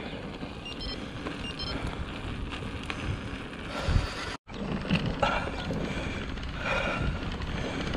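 Orbea Rallon mountain bike being ridden over a rough farm track: tyre noise on the surface with knocks and rattles from the bike, and wind on the microphone. The sound drops out for a moment about halfway through.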